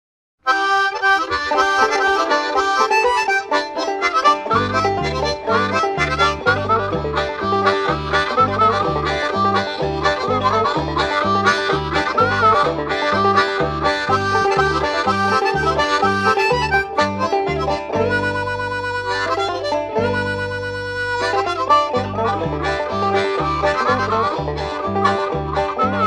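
Acoustic country-folk music with guitar and harmonica, starting about half a second in. Bass notes join at a steady beat about four seconds in, and long held harmonica chords come near the two-thirds mark.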